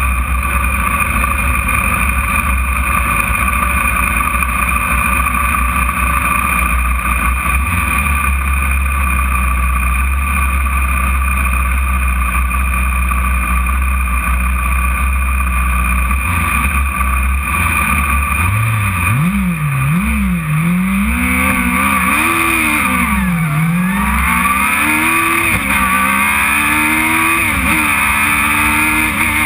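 Radical sports racer's engine heard from onboard, running steadily at low revs for the first half, then accelerating hard about two-thirds of the way in, its pitch rising and dropping repeatedly as it is revved up through the gears.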